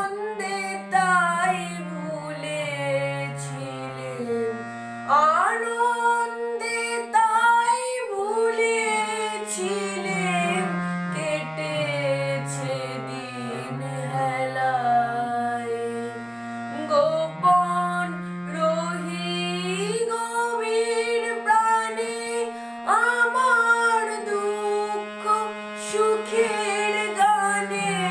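A boy singing a Bengali song while accompanying himself on a harmonium; the sung line glides and breaks over held harmonium notes that step down in pitch in places.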